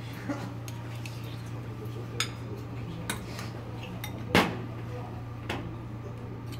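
Two metal spoons clinking and scraping against a small glass bowl while a tuna mixture is shaped into quenelles: about five sharp clinks, the loudest about four seconds in, over a steady low hum.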